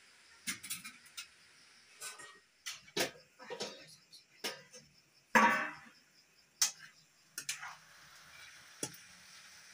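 Metal cookware clinking and knocking: pots and a steel wok set down and shifted on the stove, then a metal ladle stirring and tapping in the wok. About five seconds in there is one louder ringing clang.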